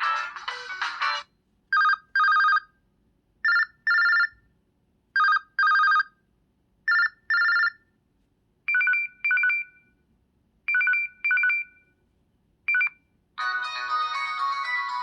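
LG Extravert 2 (VN280) phone ringtones. A melodic tone cuts off about a second in. Then comes an electronic ring of paired beeps, a short beep then a longer one, repeating. About halfway through it changes to higher, shorter beep pairs, and near the end another melodic ringtone begins.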